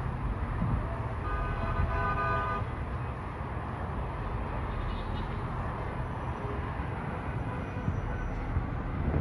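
A vehicle horn honks for about a second, just over a second in, over the steady low rumble of passing highway traffic.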